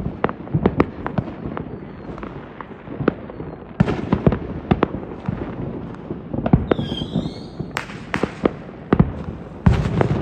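Fireworks going off: many sharp bangs and crackling pops in quick, irregular succession, with a brief wavering high whistle about seven seconds in.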